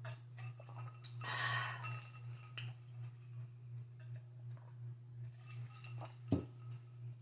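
Someone drinking juice from a glass, then setting the glass down on the table with a sharp knock about six seconds in, the loudest sound. A steady low hum runs underneath.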